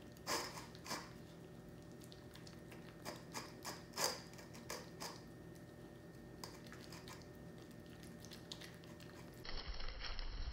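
American bully puppy crunching dry kibble from a bowl: faint scattered crunches and clicks, a cluster of them about three to five seconds in. Near the end a steady background hiss takes over.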